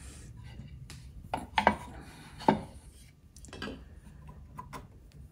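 Brass hinge parts and wooden camera-frame pieces being handled and set down on a wooden workbench: a scattered series of light metallic clinks and wooden knocks, the sharpest about one and a half and two and a half seconds in.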